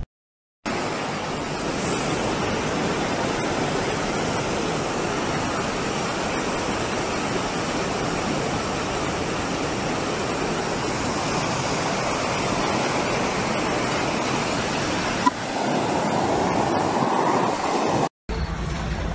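Muddy floodwater torrent rushing down a hillside gully in a steady, loud rush. About fifteen seconds in it gives way to a different, rougher noise.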